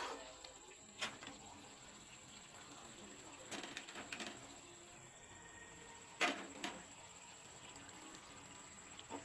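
A few scattered knocks and clinks of cookware and utensils being handled, over a faint steady hiss.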